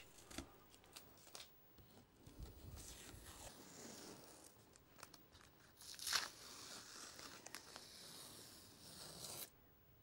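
Masking tape being peeled off the edges of a watercolour painting: faint tearing in several pulls, the loudest rip about six seconds in.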